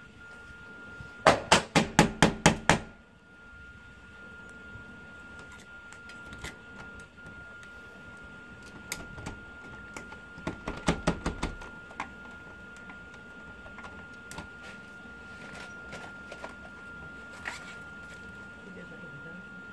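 Rapid sharp knocking at a UPVC door's euro cylinder lock as it is worked with a tool: a burst of about eight strikes at roughly six a second, lighter scattered taps, then a second cluster of five or six strikes about ten seconds in.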